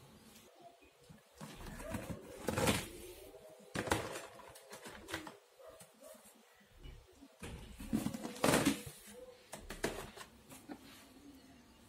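Handwoven plastic-wire baskets and crumpled packing paper being handled, with rustling and light knocks. There are several louder bursts, the biggest about two and a half, four and eight and a half seconds in.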